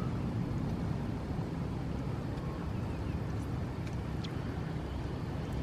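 A steady low rumble with a few faint clicks and squelches of fingers digging in wet mud, about three and four seconds in.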